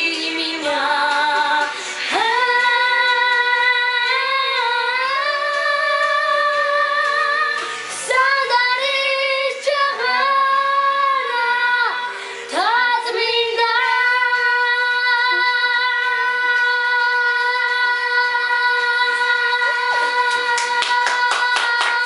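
A young girl singing solo without accompaniment, with vibrato on her held notes. The song closes on one long high note held for about eight seconds.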